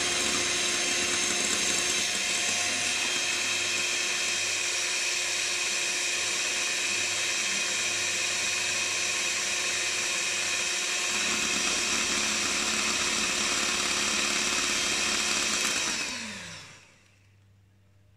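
Electric hand mixer running steadily at high speed, its beaters whisking thin, runny cake batter in a glass bowl. Near the end it is switched off and the motor winds down with a falling hum.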